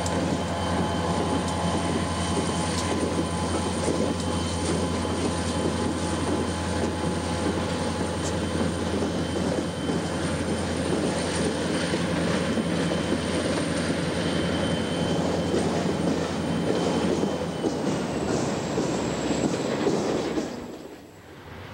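Union Pacific and Indiana Harbor Belt diesel locomotives passing close by, their engines running with a steady low drone over rumbling wheel-and-rail noise as the freight cars follow. The sound cuts off suddenly near the end.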